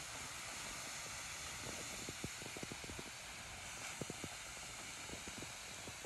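Fire-heated rocks sizzling in the water of a wooden cooking trough: a steady hiss with scattered small pops through the middle.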